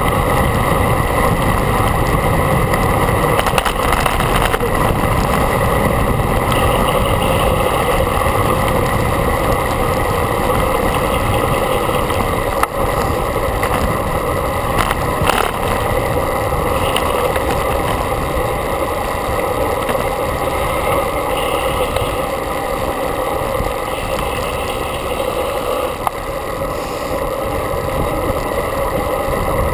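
Steady rush of wind buffeting a handlebar-mounted camera on a road bike moving at speed, mixed with road noise.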